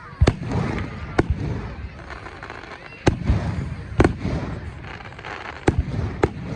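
Fireworks going off: about six sharp bangs at uneven intervals, the loudest about a second in, a fourth of the way through and near the end, with crackling between them.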